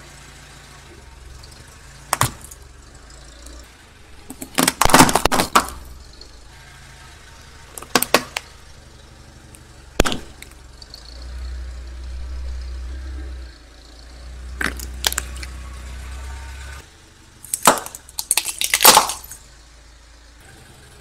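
Car tyre rolling over and crushing brittle objects on concrete: sharp snaps and cracks as coloured pencils break, loudest about five seconds in, with single cracks around two, eight and ten seconds. A low rumble of the moving car follows, then a dense burst of cracking near the end as a row of plastic whistles is crushed.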